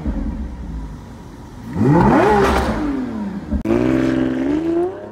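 A car engine revving: it revs up sharply about two seconds in and falls back, then after a sudden break a little past halfway pulls steadily higher in pitch, as if shifting up and accelerating.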